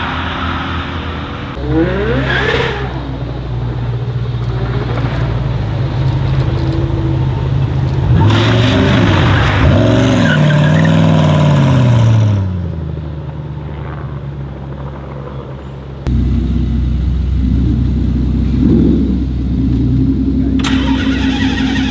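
Supercar engines in a run of short clips. First a Pagani Huayra R's V12 is heard on a race track. About eight seconds in, a Koenigsegg revs hard, its pitch rising and falling several times. From about sixteen seconds a Ferrari Enzo's V12 idles steadily, with a short rev near the end.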